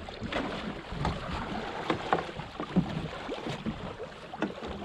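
Sea and wind sounds aboard a small boat: a steady wash of wind and water with scattered knocks and clatters on deck, and faint voices now and then.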